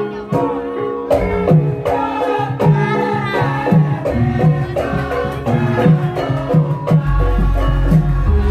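Live Javanese gamelan music accompanying a lengger dance: hand-drum strokes in a quick steady rhythm over ringing metal-keyed tones. A deep low tone comes in about halfway through and grows louder near the end.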